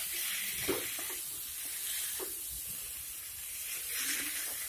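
Cauliflower and potato pieces sizzling in spiced mustard-oil masala in a kadai as a wooden spatula stirs them, with a few soft scrapes of the spatula against the pan.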